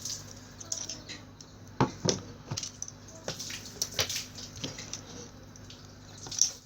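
Bench handling noises: a few sharp clicks and knocks, with smaller ticks between them, as a motorcycle meter's connector plugs and power leads are handled and plugged in. A steady low hum runs underneath.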